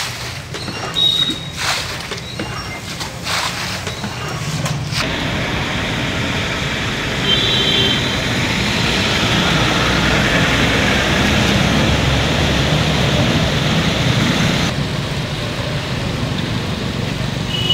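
Steady wash of noise from a flooded road: water sloshing and vehicles running through the floodwater. It begins about five seconds in, after some scattered knocks and street sounds.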